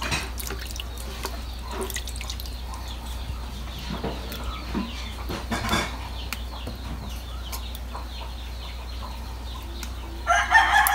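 Water splashing and dripping softly as clumps of sea grapes are swished and lifted out of a basin of water by hand. About ten seconds in, a rooster crows loudly.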